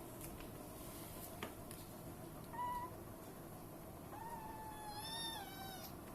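Domestic cat meowing twice: a short meow, then a longer drawn-out meow lasting about a second and a half that drops a little in pitch at the end.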